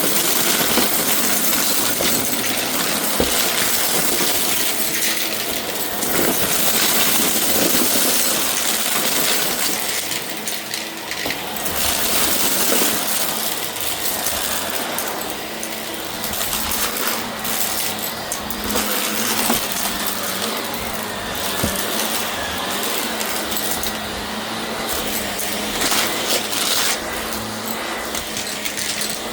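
Shark vacuum cleaner running steadily, with constant crackling and clinking as debris is sucked up and rattles through it.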